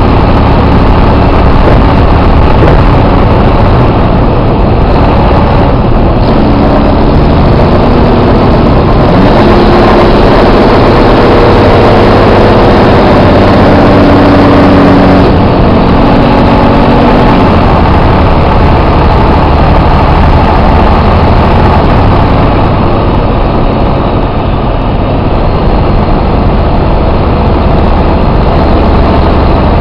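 Detroit Diesel Series 60 12.7-litre inline-six diesel in a coach running under way, a loud steady drone. About nine seconds in its note rises and holds, then eases back a few seconds after the middle.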